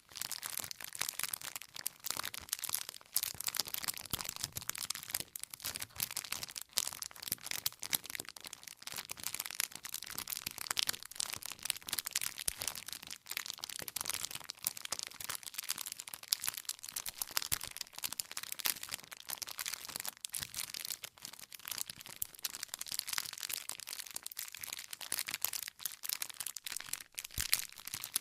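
Wood fire crackling steadily, with dense irregular snaps and a few louder pops as the burning logs split.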